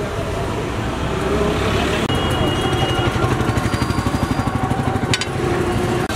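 Street traffic noise with a small engine chugging rapidly nearby for a few seconds, under background voices, and a single sharp metallic clank about five seconds in.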